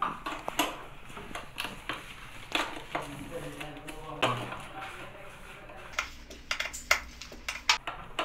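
A hex key clicking and clinking against bolt heads on a dental chair's steel backrest bracket as the bolts are worked into alignment. The sharp clicks come irregularly and grow busier toward the end.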